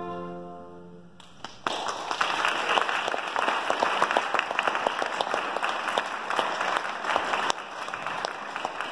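The last violin-and-piano chord dies away, then audience applause starts about a second and a half in, a dense spatter of hand claps that carries on steadily.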